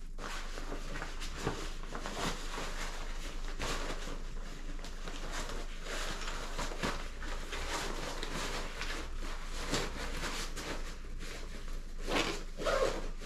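Nylon carry bag and folded camping-chair fabric rustling and being handled as the chair is packed into the bag, with small irregular scuffs and clicks throughout and a louder bout of handling near the end.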